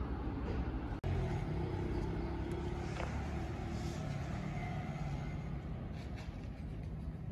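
Steady low vehicle rumble, with a momentary dropout about a second in.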